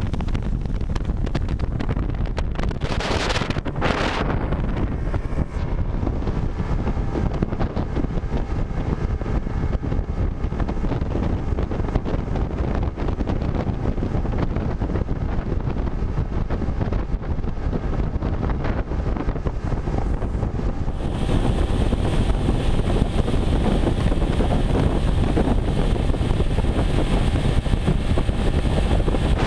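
Wind buffeting the camera microphone as an outboard-powered skiff runs at speed, with engine and water rush underneath and a brief rush of hiss about three seconds in. About 21 seconds in the sound gets louder and brighter, with a steady high whine from the outboard motor and its churning wake close by.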